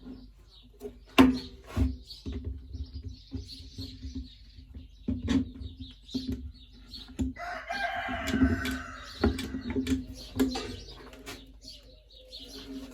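Scattered knocks and taps over a steady low hum, with one drawn-out animal call lasting under two seconds about seven seconds in.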